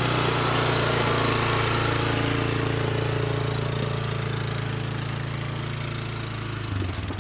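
ATV engine running steadily as the four-wheeler drives past towing a loaded cart, slowly fading; near the end the engine note drops lower.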